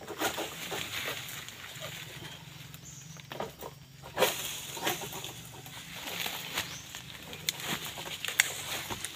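Rustling and scattered knocks of a long-pole harvesting sickle (egrek) working among an oil palm's fronds, with a few sharper knocks about four and five seconds in.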